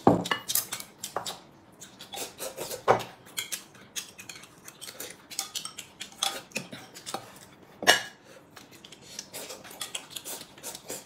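Chopsticks clicking and scraping against a metal rice bowl and other dishes as people eat, a scatter of short, irregular clinks with louder ones at the start and a little before 8 seconds in.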